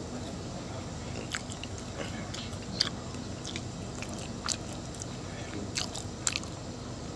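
A person chewing a mouthful of pizza close to the microphone, with scattered soft clicks and smacks of the mouth over a steady low hum.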